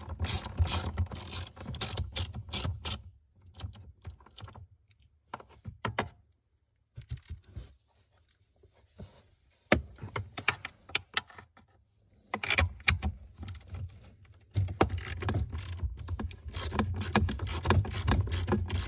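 A ratchet clicks as it turns a long socket extension with a 15 mm deep-well socket, working the hydro-boost mounting nuts loose under the dash. The clicking comes in runs: busy at first, only a few clicks in the middle, then a long steady run near the end.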